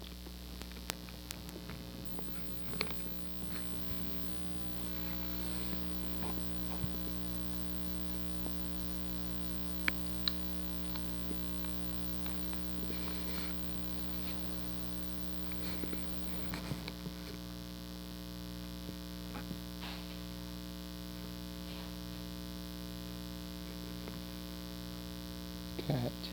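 Steady electrical hum, with a few faint clicks and handling noises.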